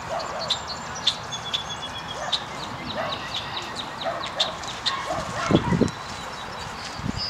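Outdoor ambience of birds chirping in short high runs, with a dog barking now and then. A brief louder low rumble comes about five and a half seconds in.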